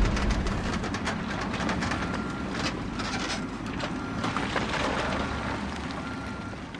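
Heavy wheel loader working earth and rock: its diesel engine running under a dense clatter of dirt and stones, with a high back-up beep repeating about once a second. The sound is loud at first and slowly eases.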